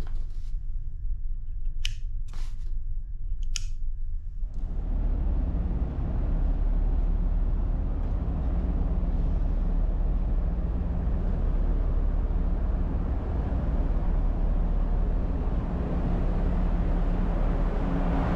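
Low ship's rumble with a few sharp clicks. About four seconds in it gives way to the steady rushing noise of a car ferry's open deck over a constant low engine hum.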